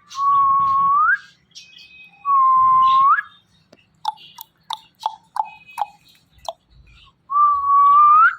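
Indian ringneck parrot whistling: three long notes, each held level for about a second and sweeping up at the end. A quick run of short chirps and clicks falls between the second and third whistles.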